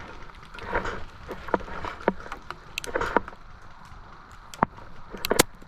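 Rustling and swishing movement through brush, with scattered sharp snaps of airsoft guns firing; the loudest is a quick pair of snaps near the end.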